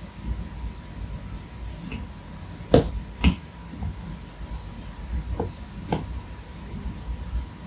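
Apple Pencil tip tapping on the iPad Pro's glass screen: two sharp taps about half a second apart near the middle, and a few lighter taps later, over a low steady rumble.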